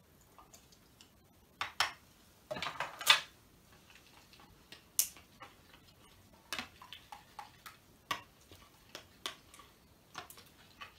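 A small utensil stirring thickening slime mixture in a plastic bowl, with irregular clicks and knocks against the bowl's side. A few sharper knocks come about two to three seconds in.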